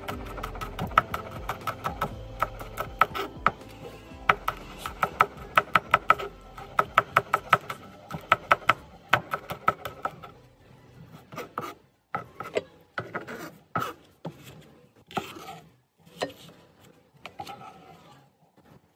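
Large knife slicing a green chilli into rings on a plastic cutting board: quick, even strokes about three a second, with faint music underneath. About halfway through the chopping stops and gives way to scattered knocks and scrapes of the knife and the cut pieces.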